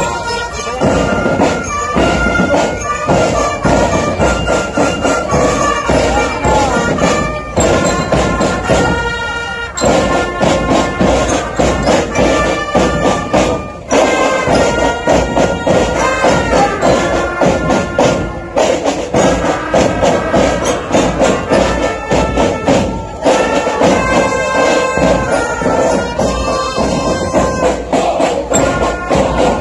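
Military marching band playing: a brass melody over fast, steady snare and bass drum beats.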